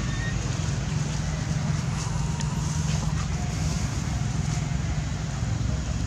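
Steady outdoor background noise: an even low rumble with hiss.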